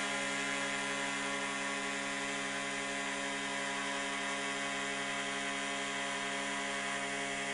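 NHL arena goal horn sounding one long, steady blast.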